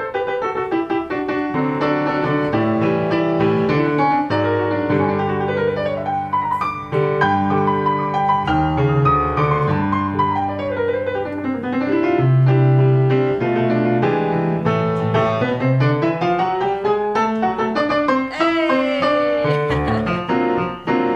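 Piano music: fast runs sweeping down and back up over held low chords.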